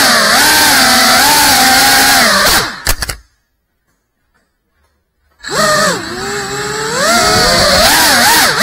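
FPV racing drone's brushless motors and propellers whining, the pitch rising and falling with throttle. About three seconds in, after a few clicks, the sound cuts out completely for about two seconds, then the motors spool up and whine again.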